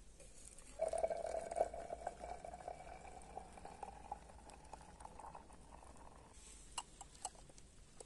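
Water poured from a brass kettle into a glass cup, the pouring note rising slowly as the glass fills for about four seconds. A few light knocks follow near the end.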